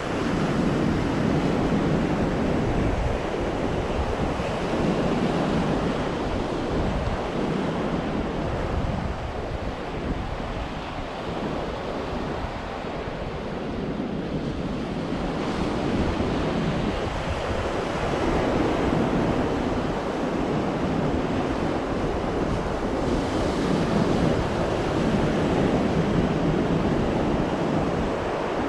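Ocean surf breaking and washing ashore in a continuous rush that swells and eases every few seconds, with wind buffeting the microphone.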